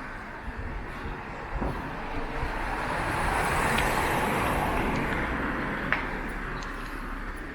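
A car drives past, its engine and tyre noise swelling to a peak about halfway through and then fading away.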